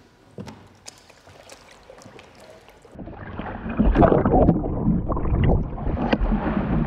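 A kayak capsizing in a pool and being rolled back with the hips: faint lapping and small clicks at first, then from about three seconds in loud splashing and churning water with a low rumble, heard through a camera mounted on the kayak that dips partly under the water.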